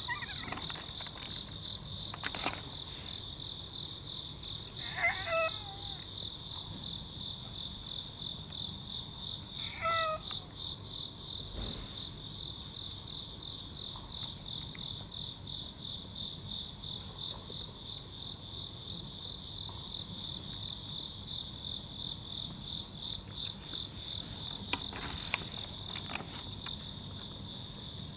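A steady, high, rapidly pulsing chorus of insects, with three short cat meows about five seconds apart in the first ten seconds.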